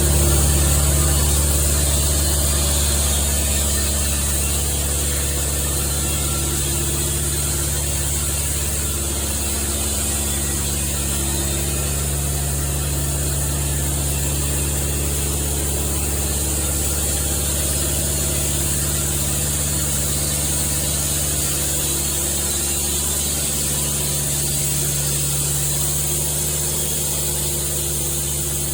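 Sawmill machinery running steadily: a low drone with a constant high hiss.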